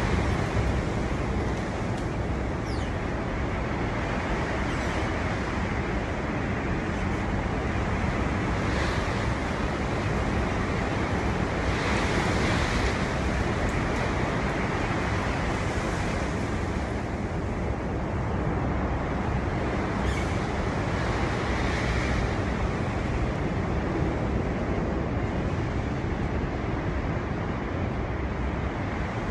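Storm-force wind blowing hard, a steady rushing noise with stronger gusts about twelve and twenty-two seconds in, and a low rumble of wind buffeting the microphone.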